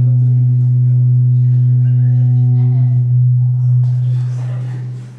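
A loud, steady low hum from the microphone and PA system, with a fainter higher overtone, fading away near the end. Faint voices can be heard underneath.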